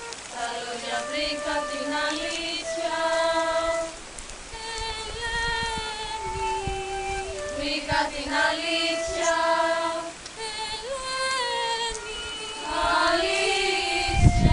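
Voices singing a slow melody with long held notes that step up and down in pitch.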